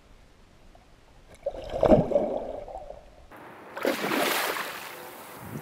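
Water sloshing and gurgling around a striped bass held in the shallows, with a loud slosh about two seconds in. About four seconds in comes a big splash as the released fish kicks away at the surface.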